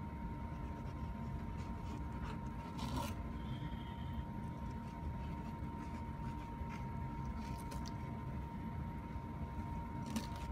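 Kitchen knife cutting and scraping along the backbone of a pike conger on a wooden cutting board, in a few brief scrapes: one about three seconds in, a couple past the middle, and the sharpest near the end. Underneath runs a steady hum with a constant faint high tone.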